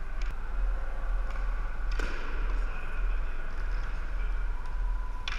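Floor hockey in a gym: sharp clacks of plastic sticks and ball, a loud one about two seconds in and another near the end, with lighter taps between, over a steady low hum.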